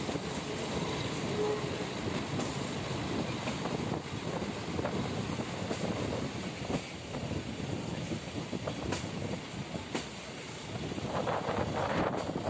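Passenger train running along the rails, heard from an open carriage window: a steady rumble of wheels and coaches with a few sharp clicks. Near the end it grows louder and harsher as the wheels begin to squeal on a curve.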